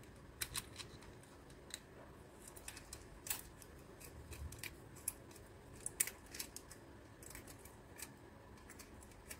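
Faint, irregular clicks and scrapes of needle-nose pliers gripping and turning the metal nut on a lamp dimmer's shaft.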